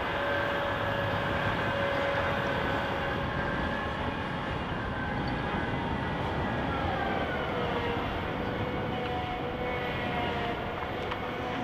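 Caterpillar 994K wheel loader running: a steady heavy diesel rumble with a whine over it that drops slightly in pitch about two-thirds of the way through.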